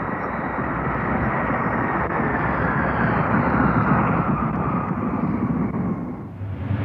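An airplane flying past: a steady rushing engine noise with a whine that slowly falls in pitch, dying away near the end.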